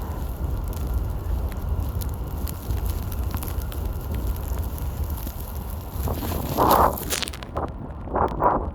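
Strong blizzard wind buffeting the microphone as a steady, rumbling rush. From about six seconds in, a few short, louder bursts come over it.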